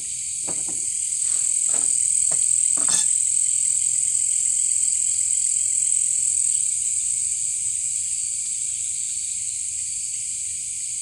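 Night chorus of insects in tropical forest, a steady high shrill hum that swells over the first few seconds and slowly eases off. A few faint clicks and knocks come in the first three seconds.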